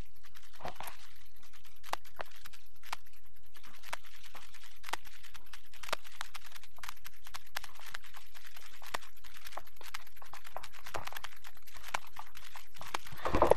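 Irregular small clicks and knocks from a handheld phablet being handled and carried on the move, with a louder rustling noise just before the end.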